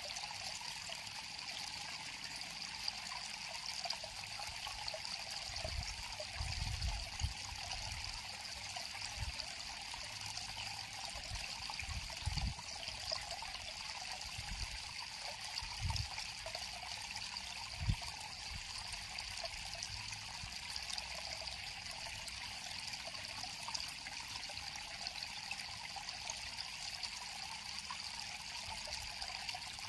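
River water flowing and trickling steadily. A few brief low thuds come in around the middle.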